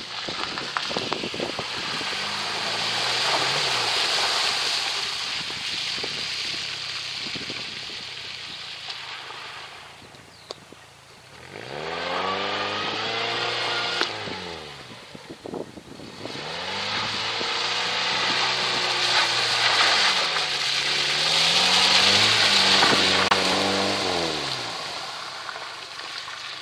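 Peugeot 405's engine revving up and falling back several times as the car is driven over rough ground, with a broad steady hiss underneath. It eases off briefly about ten seconds in, then rises and falls again.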